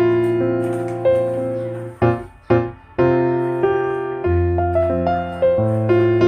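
Background piano music: soft, slow piano chords and notes, with a brief pause about two seconds in.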